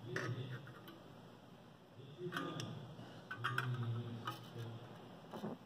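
Scattered light metallic clicks and ticks as locking pliers and a clamped sheet-steel coupon are handled, over a faint low hum.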